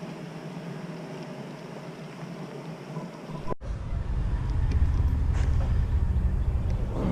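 A steady mechanical hum, then after an abrupt cut about halfway through, the louder low rumble of a Toyota Tundra pickup's engine idling.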